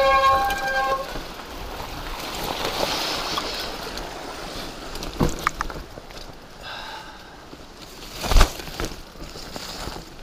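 Mountain bike disc brakes squealing in several steady tones, letting off about a second in. Then the tyres roll over the rocky dirt trail and grass brushes past, with wind rushing on the helmet-camera microphone, a few clicks, and one sharp, loud thump from a bump a couple of seconds before the end.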